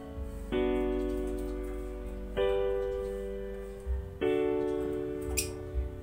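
Background music: slow piano chords. A new chord is struck about every two seconds, then rings and fades.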